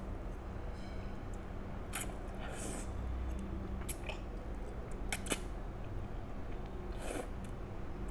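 Close-up slurping and chewing of spicy instant noodles, in several short wet bursts a second or so apart.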